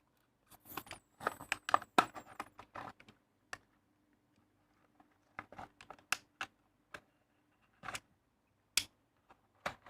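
Irregular light clicks and taps of Lego pieces and their packaging being handled, close together for the first three seconds, then sparse.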